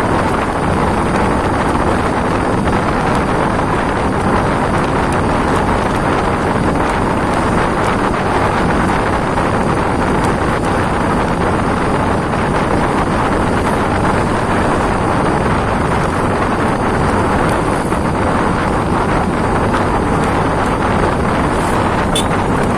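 Heavy rain pouring down: a loud, steady, dense hiss.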